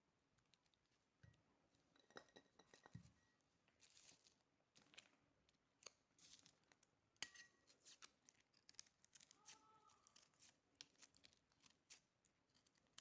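Near silence with faint, scattered clicks and light scrapes of a garlic clove being handled and cut.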